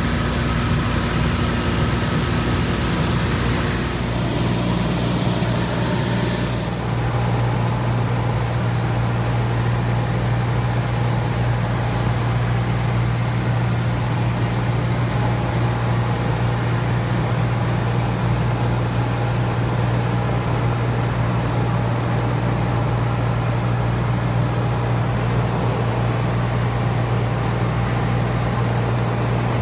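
Cessna 182's piston engine and propeller droning steadily in cruise, heard inside the cabin with the rush of air over the airframe. The airy hiss lessens about seven seconds in while the low engine drone carries on.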